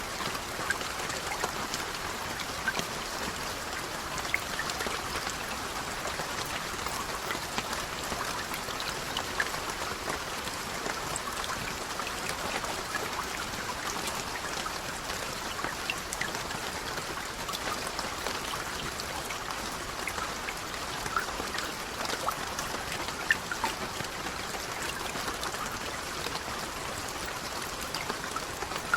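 Steady rain, with many individual drops ticking sharply on a surface over an even patter.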